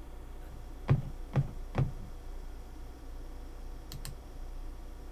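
Computer keyboard keystrokes: three sharp key presses about half a second apart, about a second in, then two lighter clicks near four seconds, over a low steady background hum.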